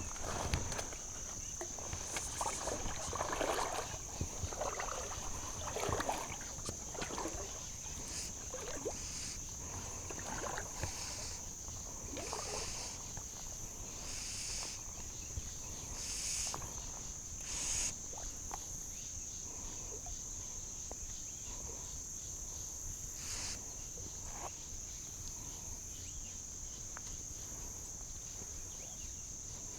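Gentle river water sloshing and splashing, busier in the first dozen seconds with a few short splashes later, over a steady high-pitched insect drone.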